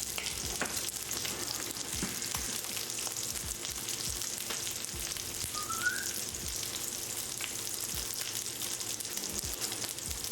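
Food sizzling and crackling steadily in a pan on the stove. About halfway through there is a brief rising chirp.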